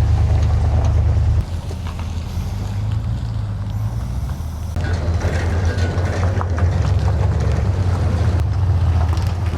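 A motor running with a steady low rumble, dropping in level about a second and a half in.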